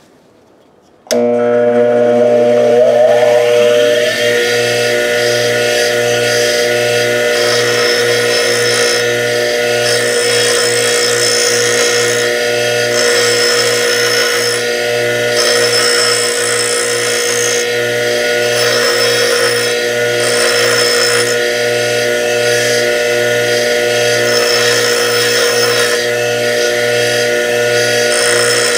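A bench grinder switches on about a second in and its motor spins up over a few seconds to a steady hum. A fuel injector's steel tip is then held against the grinding wheel, and a high rasping hiss comes and goes every second or two as the injector is turned to grind through the weld holding its pintle cap.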